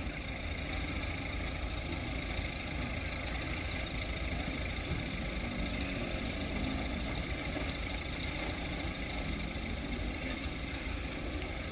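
Diesel engine of a Mitsubishi Fuso ten-wheel dump truck running steadily.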